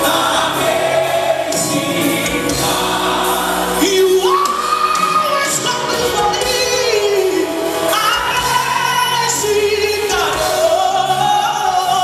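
Live gospel worship music: a woman singing lead into a microphone, sliding up into long held notes, over a backing choir and band.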